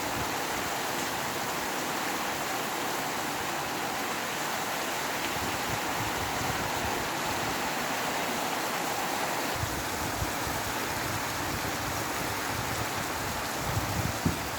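Steady rain falling, with low gusts of wind rumbling about ten seconds in and again near the end.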